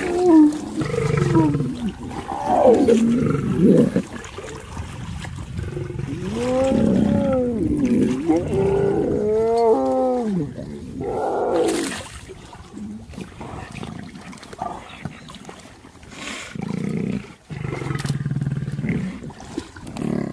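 Lions vocalizing with growls and moaning calls, including a run of quick calls that rise and fall in pitch about six to ten seconds in.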